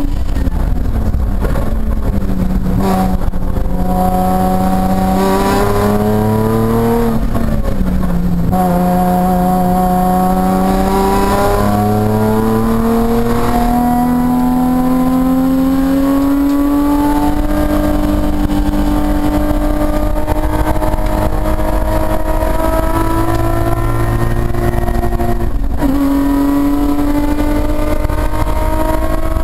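Nissan 350Z's V6 engine heard from inside the cabin under hard acceleration on track. The revs climb steadily and drop sharply at gear changes: a few seconds in, again about eight seconds in, and near the end after a long pull.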